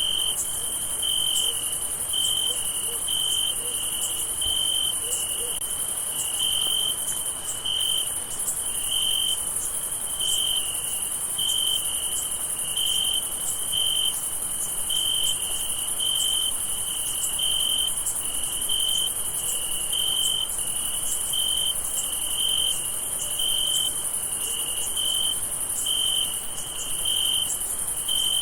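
Night chorus of crickets: a steady high-pitched trill, with a clearer, lower chirp repeating a little more than once a second.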